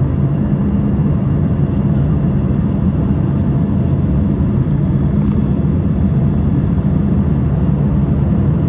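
An airliner's engines and rushing air in flight: a loud, steady rumble with a low hum and no change in pitch or level.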